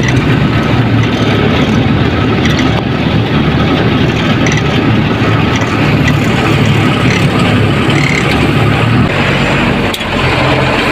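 Goods truck's diesel engine running steadily as the truck drives, heard loud from inside the cab along with road noise, with a brief dip near the end.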